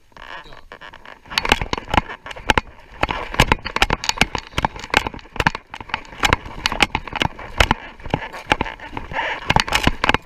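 Boots crunching on glacier snow and ice in a quick, irregular run of steps, starting about a second in.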